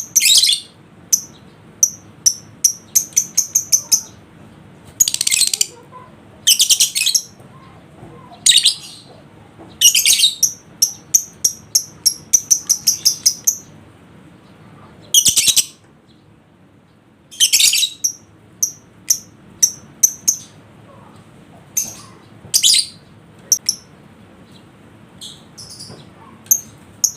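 Lovebird calling: shrill chirps and short rapid trills in quick bursts, with a pause of about a second and a half around the middle.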